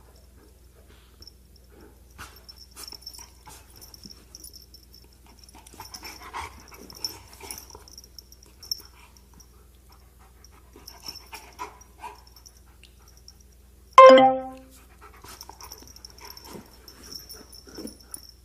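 A dog whimpering and panting softly, then giving one short, loud bark near the end.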